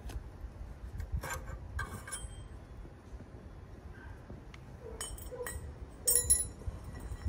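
Metal clinks and scrapes from a perforated metal exhaust baffle being worked out of a motorcycle silencer and handled. Several short chinks ring briefly, grouped about a second in and again around five to six seconds in; the loudest come a little after six seconds.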